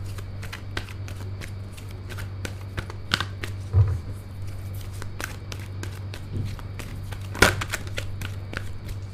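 A deck of tarot cards being shuffled and handled by hand: irregular short clicks and flicks of the cards, with a sharper snap near the end and a soft thump about four seconds in, over a steady low hum.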